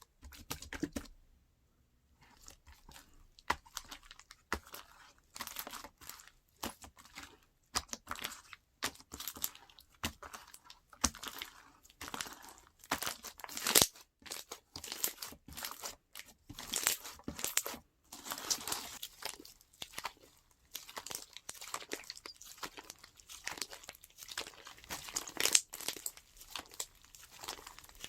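Crunchy slime being squeezed and stretched by hand, giving dense crackling and popping.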